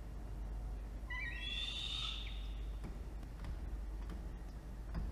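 Peregrine falcon giving a single call about a second long, starting about a second in.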